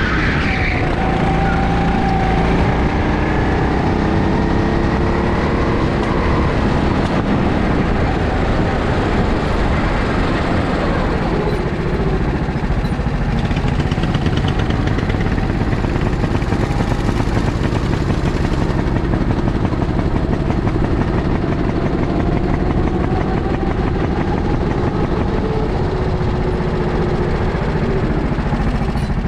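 Go-kart engine running under load, heard from the driver's seat, its pitch rising and falling with the throttle through the bends and along the straight.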